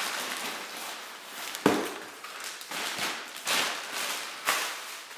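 Plastic wrapping crinkling and rustling as a float tube packed in it is lifted out of a cardboard box and handled, with a few sharp crackles, the loudest about one and a half seconds in.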